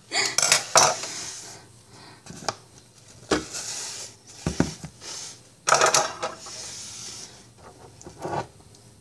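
Dishes and utensils clattering and clinking on a kitchen counter as they are handled and cleared away, with some scraping and rubbing between the knocks.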